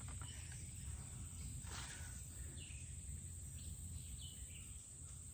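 Faint woodland ambience: a steady high-pitched insect drone over a low wind rumble, with a few short falling bird chirps and a brief scuff about two seconds in.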